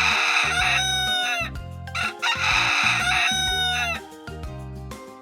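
Rooster crowing cock-a-doodle-doo twice, each crow ending in a falling pitch, over light background music.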